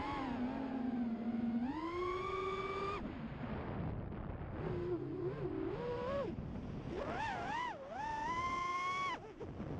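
Brushless motors of a 5-inch FPV racing quadcopter (EMAX RS2205-S 2300KV) whining, the pitch rising and falling with the throttle. The whine jumps up about two seconds in and drops back a second later. It wavers and climbs again from about seven seconds, then cuts off sharply just after nine.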